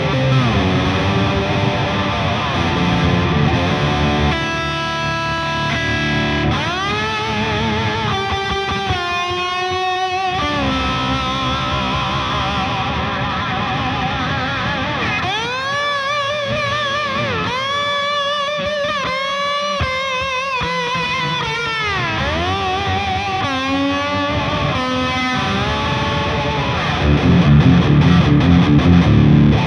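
Les Paul-style electric guitar played through a Bluewhale Tonemaster boost pedal on a 'swamp blues boost' setting: a blues lead with string bends and vibrato on held notes, turning to louder low chords near the end.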